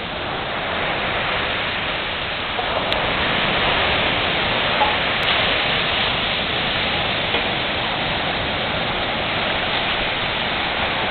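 Surf breaking and washing up a sandy beach: a steady, unbroken rush of noise.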